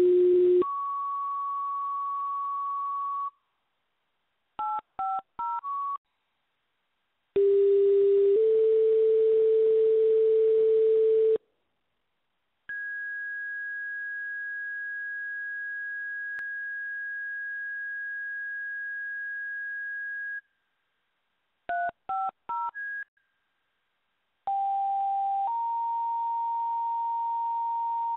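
Fire dispatch radio paging tones heard over a scanner. Sequential two-tone pages, each a short lower tone followed by a longer, higher tone of about three seconds, come at the start, about seven seconds in, and near the end. Between them are two quick clusters of touch-tone beeps and one long steady high tone lasting about eight seconds: tone-outs that set off the fire stations' pagers.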